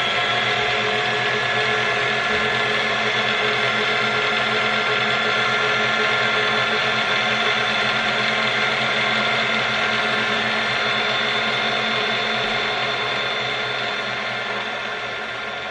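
Sewing machine running steadily at speed as it stitches hair onto a wig, fading out near the end.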